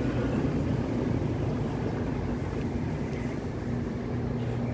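A steady low mechanical hum over a rumbling background noise, like a motor or engine running.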